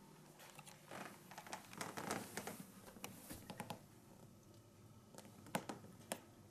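Faint handling noise: a run of small clicks and rustles, then three sharper clicks near the end.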